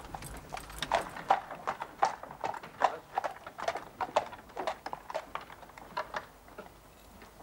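A horse's hooves clip-clopping on a hard road as it draws a cab, about two or three strikes a second, dying away about six seconds in as the cab halts.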